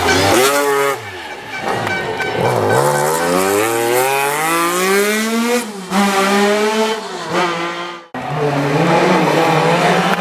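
Rally car engines being revved hard: the pitch climbs through the gears and falls at each shift or lift. A sudden cut about eight seconds in gives way to another car's engine.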